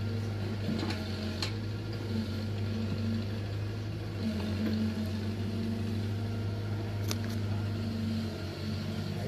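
Steady low hum of a motor running, with a slightly higher tone that comes and goes and a few faint clicks.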